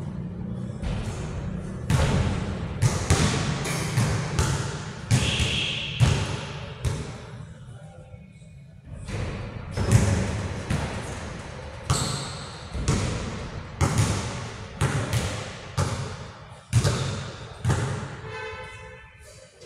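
Basketball bouncing on a hard gym floor, about one echoing bounce a second, with a short lull partway through.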